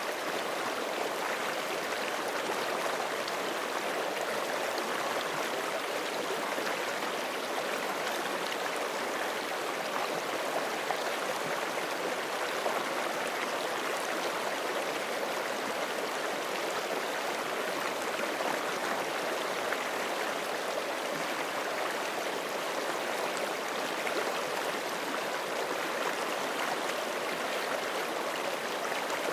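Forest creek flowing over rocks: a steady, even rush of running water.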